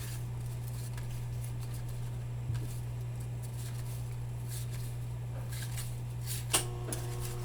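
Faint rustling of baseball cards being slid and flipped through by hand, over a steady low hum, with one sharper tick about six and a half seconds in.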